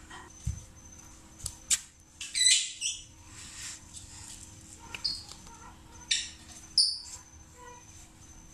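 Short, high-pitched chirping calls from a small animal, loudest in a cluster about two and a half seconds in and again at about six and seven seconds, over a faint, evenly repeating high chirp.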